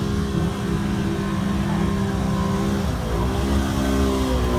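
Off-road vehicle engine running under throttle, its pitch dipping briefly about three seconds in and then climbing back.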